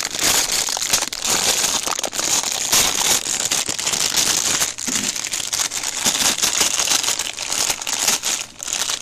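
Plastic instant-noodle packet crinkling and rustling in the hands, a dense, close crackle as it is handled and opened.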